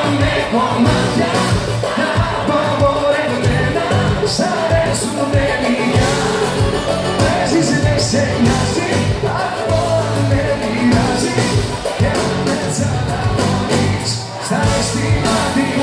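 Loud live band music: a Greek pop song played on stage with electric guitars and drums.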